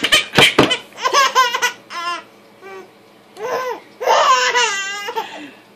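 A baby laughing in a string of bursts, the longest coming about four seconds in.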